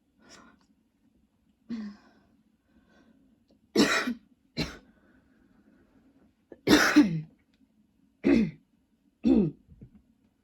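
A woman's coughing spell: a string of about seven short coughs with gaps between. The two loudest and longest come a little under four seconds in and at about seven seconds. The uploader puts the long spells down to a lingering tickle in her throat.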